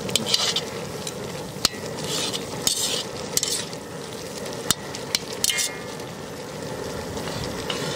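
Minced mutton sizzling in a large kadai as its liquid cooks off, stirred and scraped with a long metal ladle. Several sharp clinks of the ladle against the pan stand out over the steady hiss.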